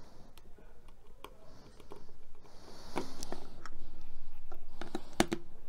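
Small Phillips screwdriver working the battery-cover screw of a plastic handheld ultrasonic dog repeller: faint scratching and light clicks, with a sharper click near the end.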